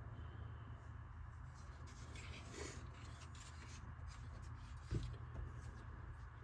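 Faint rubbing and handling of small hard plastic RC car body parts, with a scrape about two and a half seconds in and one soft knock about five seconds in, over a low steady hum.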